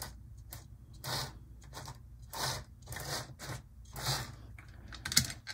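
Lima HO-scale model locomotive chassis with a ring-field motor being worked back and forth on the track by hand, sticking and struggling to run. It gives short scraping, grinding spurts every half second to a second over a low steady hum. The mechanism seems to need lubrication.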